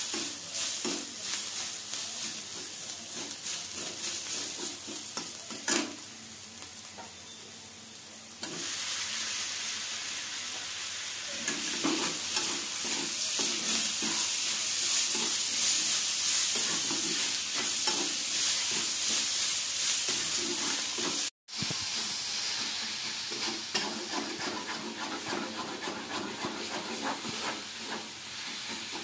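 Onions, green capsicum and tomato sizzling in hot oil in a wok while a spatula stirs and scrapes them, with a steady hiss and irregular scraping strokes. The sizzle gets louder about a third of the way in, as fresh tomato pieces go into the pan, and the sound breaks off for a moment about three-quarters through.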